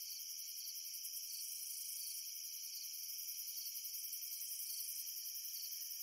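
A chorus of crickets chirping: several high-pitched, fast-pulsing trills overlapping in a steady drone.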